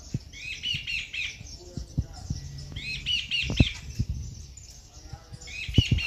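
Jungle babblers chattering: three short bursts of quick, repeated harsh notes, about two and a half seconds apart. Between the bursts come a few low knocks, which are the loudest sounds.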